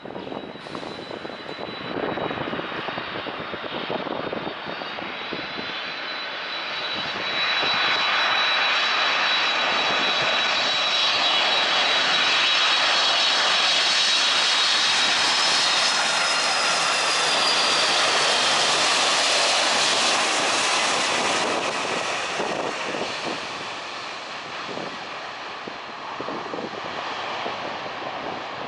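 Jet airliner's engines passing close by, a steady rushing noise topped by a high, whining fan tone; it swells about seven seconds in, stays loud for some fifteen seconds, then fades away.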